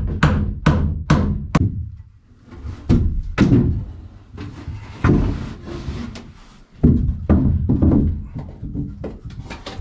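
Hammer blows on wood framing, a quick run of about two strikes a second, then irregular wooden knocks and thunks as 2x3 lumber framing is handled and set against a plywood floor and walls.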